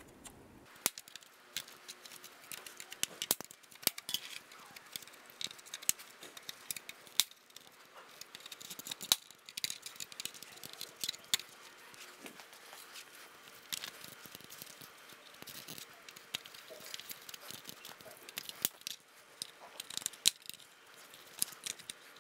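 Plastic clips on a Honda Pilot grille being pried with a plastic trim tool: irregular sharp clicks and snaps as the tabs holding the chrome trim to the grille backing pop loose, with plastic scraping and rattling between them.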